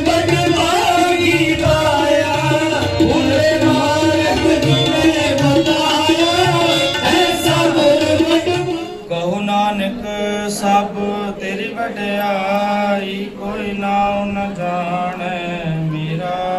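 Sikh kirtan: devotional singing with tabla and harmonium. About nine seconds in, the tabla stops and the singing goes on over a held harmonium drone.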